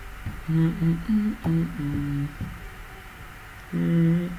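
A man humming a tune: short phrases of held notes that step up and down in pitch, with a break of about a second in the middle.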